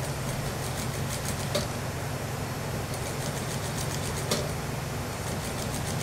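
Industrial sewing machine stitching a suit jacket in three short runs, its needle ticking rapidly over a steady low hum, with a sharper click about one and a half seconds in and another about four seconds in.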